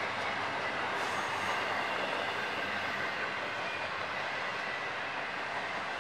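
Double-stack container freight train rolling past at a steady speed: a continuous rumble and rattle of wheels on the rails and of the cars.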